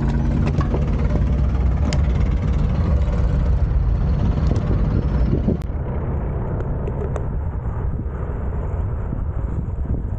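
Steady low rumble of riding, with wind buffeting the microphone; about halfway through the sound becomes duller and slightly quieter.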